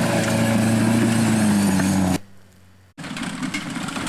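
1985 Pontiac 6000's engine running steadily as the car drives close by, cutting off abruptly about two seconds in. After a short near-silent gap, a quieter, rougher running noise follows.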